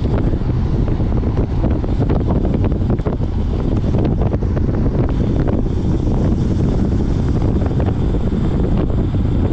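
Wind buffeting the microphone of a road cyclist riding at speed: a loud, steady low rush with no break.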